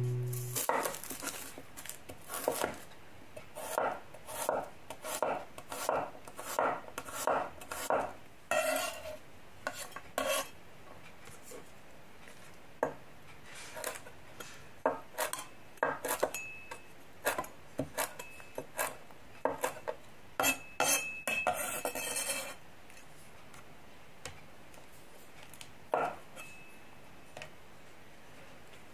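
Kitchen knife and cleaver slicing garlic cloves and lime leaves on a wooden end-grain chopping board: a run of sharp knocks of the blade on the wood, in short bursts of about two a second. The knocks stop about 22 seconds in, and one lone knock comes a few seconds later.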